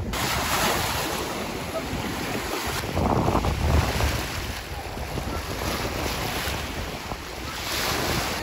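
Waves of Lake Superior washing against the rocky shore, with wind buffeting the microphone in a low rumble. The rush swells louder about three seconds in.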